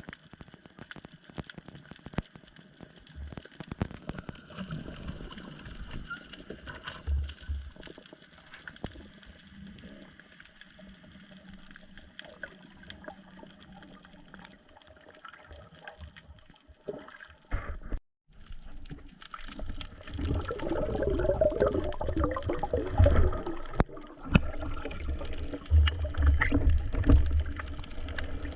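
Water sloshing and gurgling. After a brief break about two-thirds through, it turns louder and busier, with bubbling and low thumps.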